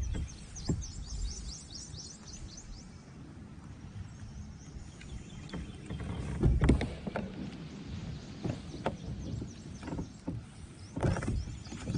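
Fishing tackle being handled in a small boat: a cast, then a spinning reel being cranked, with scattered knocks and a louder thump about six and a half seconds in.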